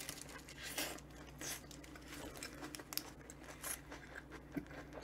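Close-up chewing of a soft sandwich, faint wet clicks and smacks scattered throughout, with light crinkling of its paper wrapper.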